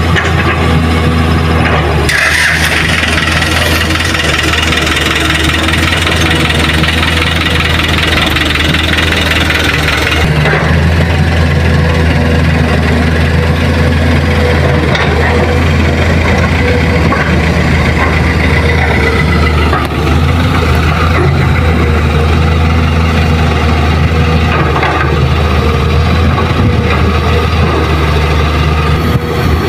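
Heavy diesel engines of an excavator and dump trucks running at work: a deep, steady engine drone with a hiss above it, shifting in character about ten seconds in.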